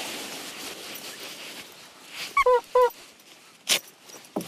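Nylon sleeping bag rustling as it is handled, then two short high-pitched calls about half a second apart, a little past halfway, and a brief sharp rustle near the end.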